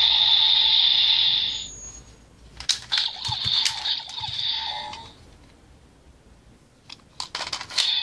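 Kamen Rider Build Driver toy belt: its electronic sound loop plays, then cuts off about a second and a half in. Sharp plastic clicks and a brief electronic tone follow as the Full Bottles are pulled from the slots. After a quiet spell, more clicks near the end as another bottle is pushed in.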